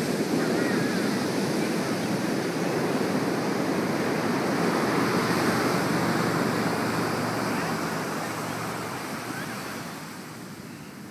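Ocean surf breaking and washing up a sandy beach: a steady rush of white water that eases off about eight seconds in as the wash recedes.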